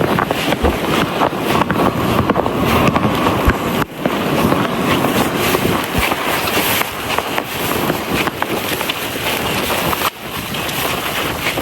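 Wind buffeting the microphone during a snow blizzard, a steady gusty rush with two brief sharp drops about four and ten seconds in.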